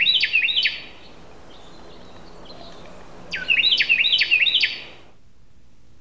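A songbird singing two songs, each a quick series of about four repeated high phrases; the first song ends under a second in and the second runs from a little past the halfway point to near the end.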